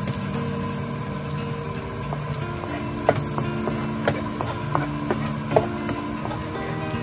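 Sliced garlic sizzling in oil in a nonstick frying pan as a wooden spoon stirs it, with several sharp taps of the spoon against the pan. Soft background music plays underneath.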